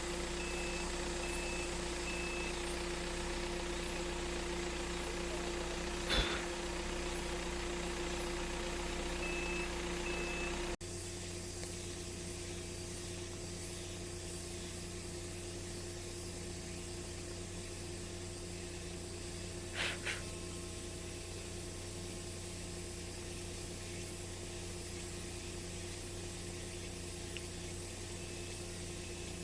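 Off-road vehicle's engine running steadily, with a rapid intermittent electronic beeping during the first ten seconds and two short knocks, about six and twenty seconds in.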